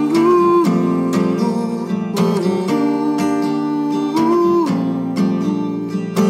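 Instrumental passage of a song: strummed acoustic guitar, with a higher melody line of held notes that slide up and down between pitches.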